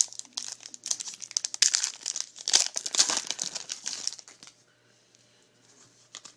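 Foil trading-card pack wrapper crinkling and being torn open, for about four seconds, then it stops.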